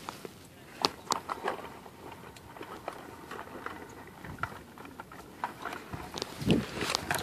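Scattered faint sharp clicks and knocks, a few close together about a second in, with a stronger low thump about six and a half seconds in.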